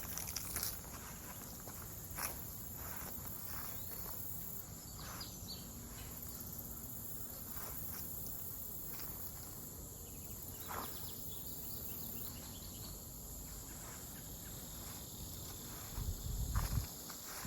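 Insects keeping up a steady high-pitched chorus, with scattered footsteps on the trail and a brief low thump near the end.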